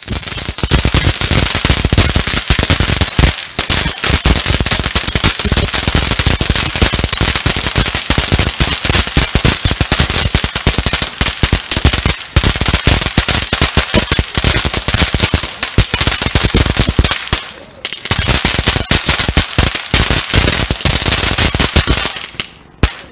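Ground fountain firework crackling: a loud, dense stream of rapid pops from its crackling stars, with short breaks about 3.5, 12 and 18 seconds in, stopping just before the end. A short falling whistle sounds in the first second.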